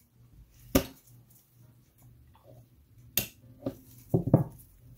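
Sharp metallic clicks and knocks as the AR lower receiver and its small parts are handled while the trigger pin is seated: one about a second in, another about three seconds in, and a quick cluster near the end.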